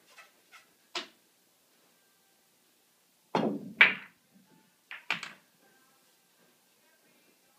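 Pool balls clacking: a few light clicks, then about three seconds in the cue ball crashes into the racked balls, which clatter apart with a loud double crack. Two more sharp ball clicks follow about a second later.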